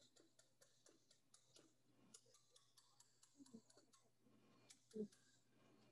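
Faint, regular clicking of a wire whisk against the side of a stainless steel bowl as whipped frosting is whisked by hand, about four strokes a second. A single dull knock about five seconds in.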